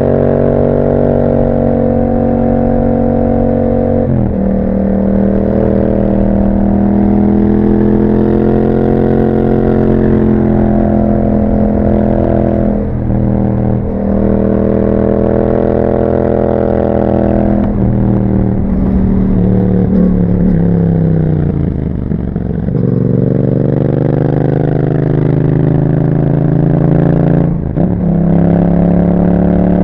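2021 Yamaha MT-07's 689 cc parallel-twin engine through an Akrapovic exhaust with a dB killer, running under way. It pulls steadily, with sharp pitch drops at several gear changes and one longer falling slowdown about three quarters through before it picks up again.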